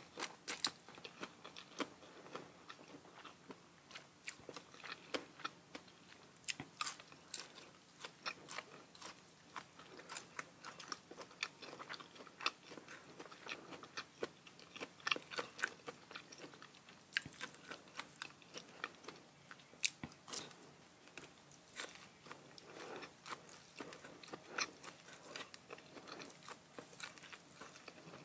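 Close-miked chewing and crunching of food, an irregular run of short crisp clicks and crunches, several a second.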